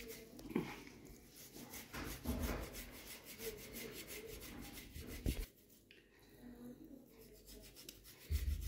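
Boiled potato being grated on a small metal hand grater into a bowl: soft, uneven rasping strokes. A short low thump comes near the end.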